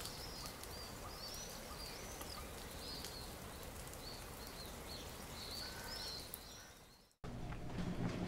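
Outdoor ambience of small birds chirping over a steady hiss of background noise. About seven seconds in it cuts abruptly to a louder indoor sound with a low hum and light clicks.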